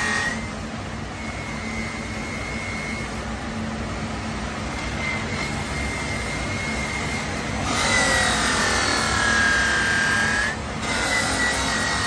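Bench polishing wheel spinning with a steady high whine while a metal motorcycle muffler tube is worked against it. From about eight seconds in, the tube pressed to the wheel adds a loud hiss and the whine dips in pitch, with a short break near the end before contact resumes.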